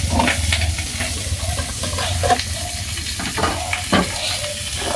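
Steady hiss over a low hum, with scattered light knocks and clinks of plastic bowls and utensils being handled.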